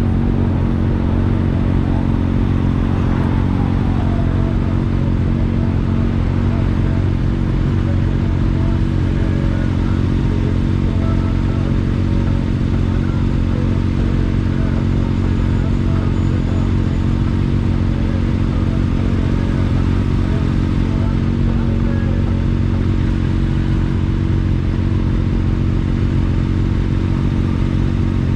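Kawasaki Ninja ZX-10R sport bike's inline-four engine idling steadily, its pitch holding even throughout.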